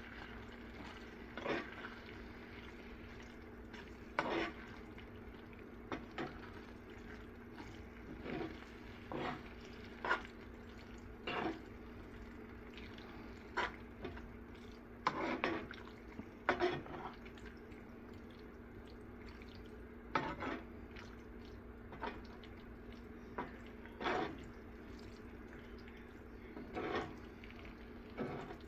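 Thick pav bhaji vegetable mash bubbling in a pot, with wet plops and pops coming irregularly every second or two over a steady low hum.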